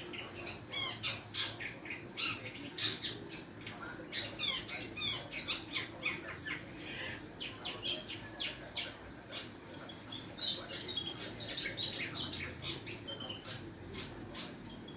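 Long-tailed shrike (cendet) singing a rapid, jumbled run of short harsh chirps and squawking notes: a bird learning its song.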